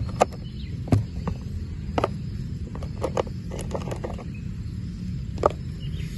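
Large land snail shells, giant African land snail type, clicking and knocking against one another and the plastic tub as a gloved hand moves them, a few irregular taps with a cluster around the middle, over a steady low rumble.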